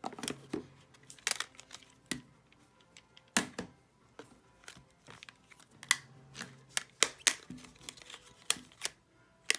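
Trading cards being handled and laid out on a table: irregular sharp clicks and crinkling.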